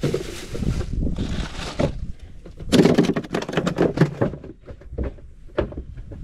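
A crappie dropped into a plastic ice cooler and the cooler lid shut. About three seconds in comes a quick flurry of knocks and thuds lasting about a second and a half, then a few lighter clicks.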